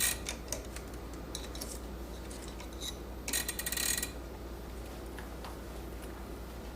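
Light metallic clicking and scraping in short clusters, with a longer flurry about three seconds in, as typewriter ribbon is worked into the slot of the metal ribbon guide on a 1949 Smith Corona portable typewriter.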